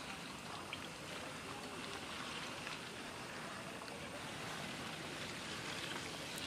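Quiet, steady water trickling and lapping around a small wooden boat gliding slowly through floating water plants, with a few faint ticks.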